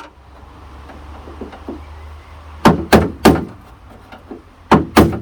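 Hammer blows knocking the door lock's locking plate sideways inside a 1954 DeSoto car door to free the lock: three quick strikes a little before halfway, then two more near the end.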